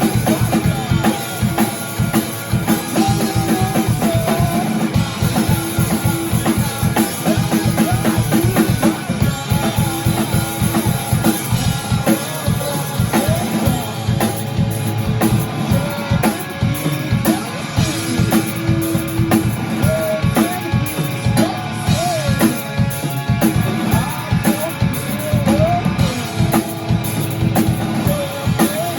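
Rock music played on drum kit and electric guitar, with dense, regular drum hits driving a steady beat.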